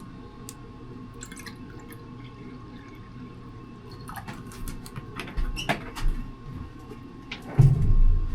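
Scattered light clicks, taps and drips of cookware and water being handled at a kitchen counter, over a faint steady hum, with a heavier dull knock near the end.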